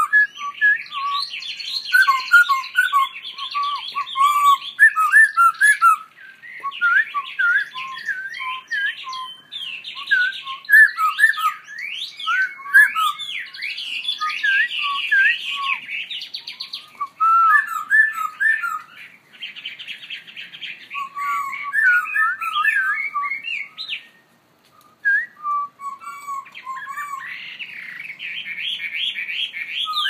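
Caged songbirds singing to each other: a laughingthrush, a hwamei and canaries. The song is loud and nearly unbroken, made of varied whistled phrases, gliding notes and rapid chattering trills, with one short pause about three-quarters of the way through.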